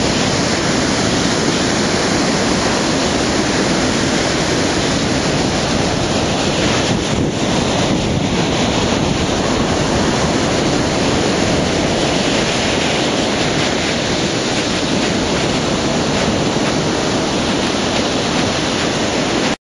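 Ocean surf breaking on a beach, a steady, loud rush of waves with no break.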